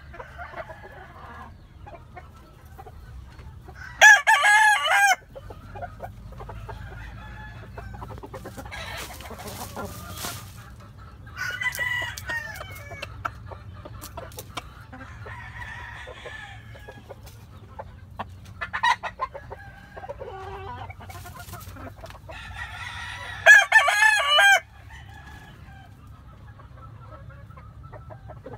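A gamefowl rooster crows twice, loud and close, each crow about a second long and some twenty seconds apart. Between the crows come quieter clucks and calls from the hens.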